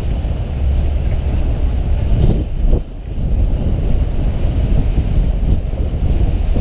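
Wind buffeting the camera microphone: a loud, steady low rumble that drops away briefly about three seconds in.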